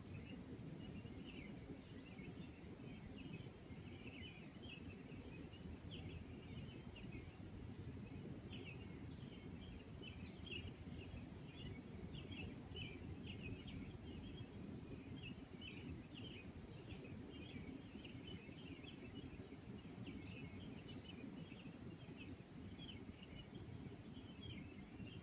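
Faint background ambience: a steady low noise with irregular, quick high-pitched chirping that goes on throughout.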